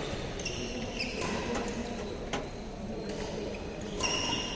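Badminton rackets striking shuttlecocks in a few scattered sharp clicks, with short squeaks of court shoes on the synthetic floor. The sounds carry in a large sports hall.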